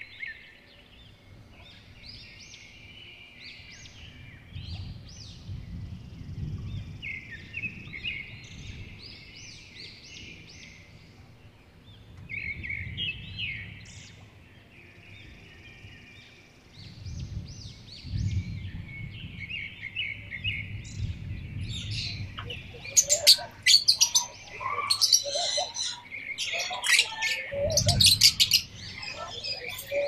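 Parrots chirping and chattering in a run of short high calls; in the last third the calls grow louder and sharper, with squawks mixed in.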